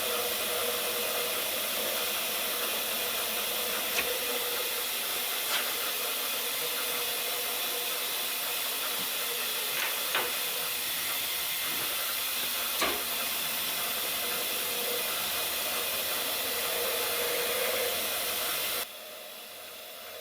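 Compressed air hissing steadily onto a milling cut to blow the chips clear, over the milling machine running, with a few sharp ticks along the way. The hiss cuts off suddenly near the end.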